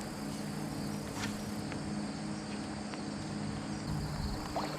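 Steady insect buzzing, with a low steady hum underneath and a few faint ticks.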